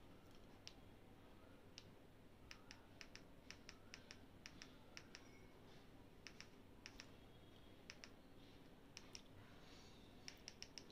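Near silence with faint, irregular clicks of remote control buttons being pressed, sometimes two or three in quick succession.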